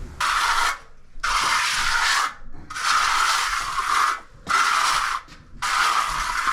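A run of long scraping strokes, about six in a row. Each lasts from half a second to a second and a half, with brief pauses between them.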